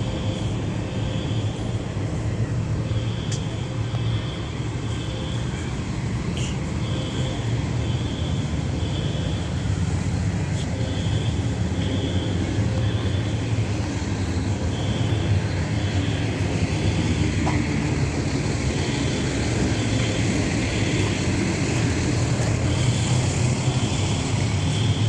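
Fire alarm sounding in the temporal-three evacuation pattern: three short high beeps, a pause, and again, repeating about every four seconds. It is heard faintly over a steady low engine rumble.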